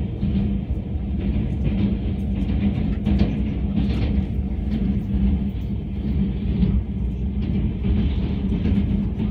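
Passenger train rolling across a steel truss railway bridge: a steady rumble with a constant low hum, and light clicks about once a second.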